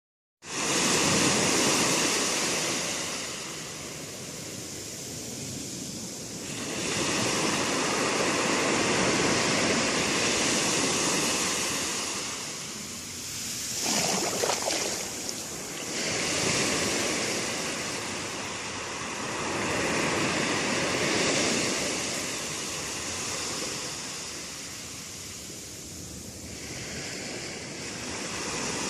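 Sea waves breaking on a shore: the surf rises and falls in slow surges every several seconds, with one sharper surge about halfway through.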